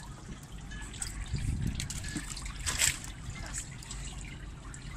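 River water splashing and trickling around a fishing net being hauled in by hand, with a sharper splash about three seconds in.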